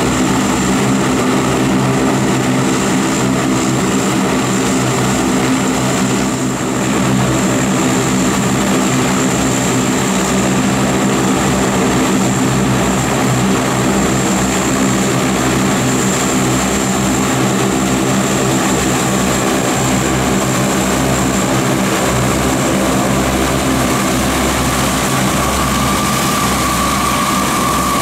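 Convair 580's Allison 501 turboprop engines running as the aircraft taxis: a steady propeller drone with a high turbine whine. A pitched whine around the middle of the range grows louder near the end.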